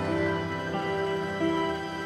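Background music: a slow, gentle instrumental of held notes that change pitch now and then.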